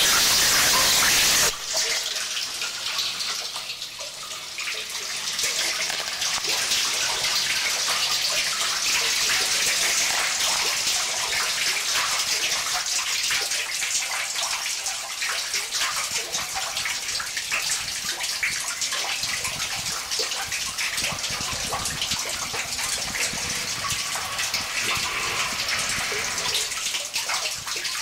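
Live noise music: a dense, loud wall of hiss that cuts off suddenly about a second and a half in, giving way to a crackling, hissing texture dotted with many small clicks.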